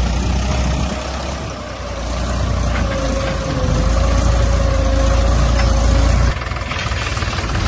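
Small engine of a homemade mini tractor running steadily with a low drone and a steady whine above it; the sound drops suddenly in level about six seconds in.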